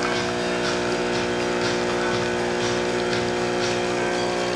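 DeLonghi Magnifica espresso machine's vibration pump humming steadily while an espresso shot is being extracted.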